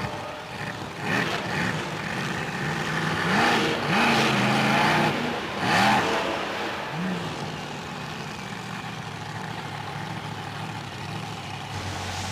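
Monster truck engine revving up and down several times in the first half, then running more steadily.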